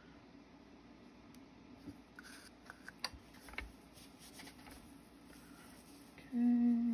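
A few light clicks and taps from handling small crafting tools and moulds, then near the end a short, steady hum at one pitch, about a second long.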